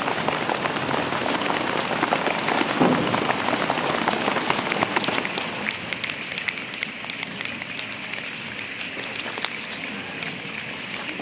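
A large audience making the sound of a rainstorm with their hands and feet: a dense, rain-like patter that thins out about halfway through into a softer hiss with scattered sharp clicks, like finger snaps, as the storm dies down.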